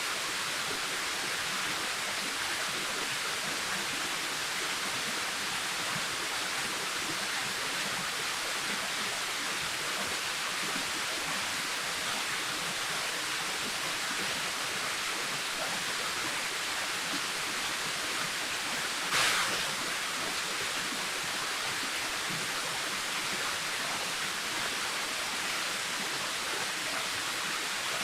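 Waterfall rushing steadily, with one brief louder surge of splashing about two-thirds of the way through.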